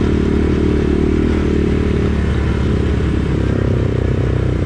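Single-cylinder engine of a CFMoto 450S ATV running while riding, its note changing about two seconds in.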